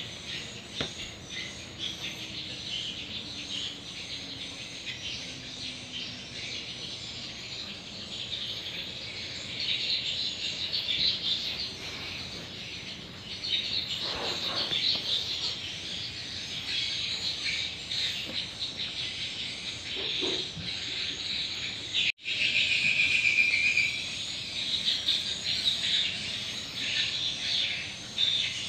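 Steady chirping of insects and birds, a dense, high, unbroken chorus; it cuts out for an instant about three-quarters of the way through.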